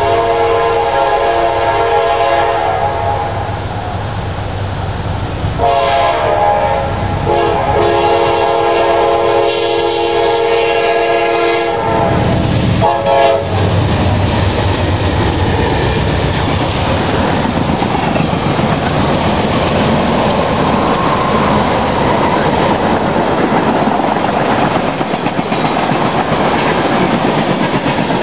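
Freight diesel locomotive's multi-chime air horn blowing a crossing warning: a blast of about three seconds, a longer one starting about six seconds in, and a short one near thirteen seconds. After that the locomotives and a long string of ethanol tank cars rumble past close by, wheels clattering over the rail joints.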